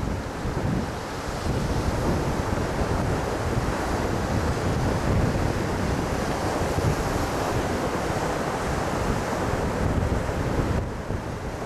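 Gulf of Mexico surf: small waves breaking and washing up a sandy beach, with wind rumbling on the microphone. The sound eases slightly near the end.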